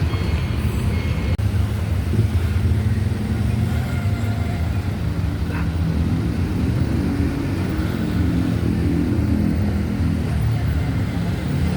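Bus engine running with a steady low rumble, its note growing stronger in the second half.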